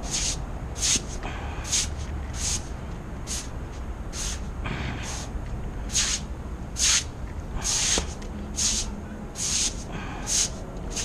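Rhythmic hand scrubbing strokes over a hard surface, about one short hissing stroke a second, repeated steadily, over a low background rumble.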